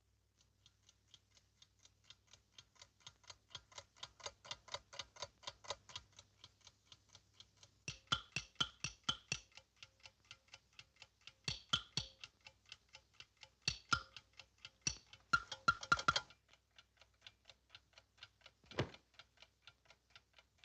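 Even ticking like a clock, about five ticks a second, growing louder over the first few seconds. It is broken several times by short runs of louder, sharper clicks, and one knock comes near the end.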